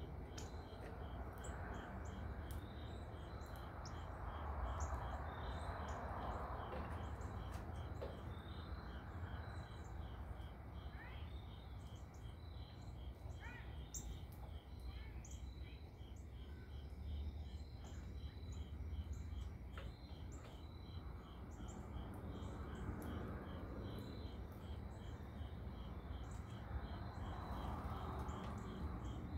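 Evening insect chorus: a steady, evenly pulsing high chirping, with scattered short bird chirps and a few brief sliding calls over a low background rumble.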